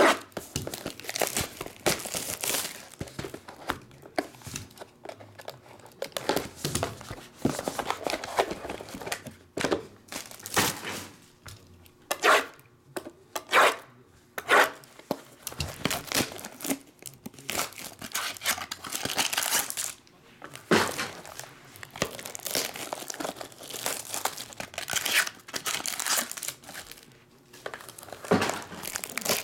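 Clear plastic shrink-wrap being slit with a knife and torn off trading-card boxes: irregular crinkling and tearing, with a few sharper, louder rips around the middle.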